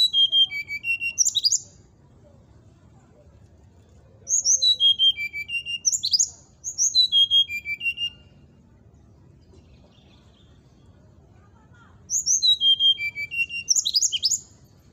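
Brown-chested jungle flycatcher singing four short phrases, each a run of clear whistled notes stepping down in pitch and ending in quick rising upsweeps, with pauses of a few seconds between them.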